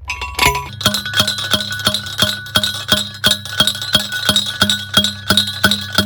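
Steel fence T-post being driven into the ground with a hand post driver: a fast, even run of ringing metal clangs, about three strikes a second, starting under a second in.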